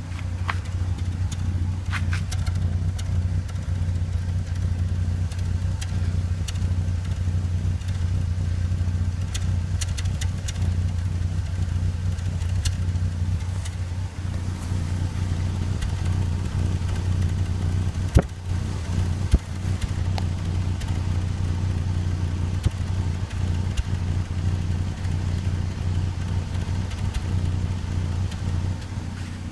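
Volvo S80 2.5T's five-cylinder turbo engine running steadily, a constant low hum with a few faint clicks.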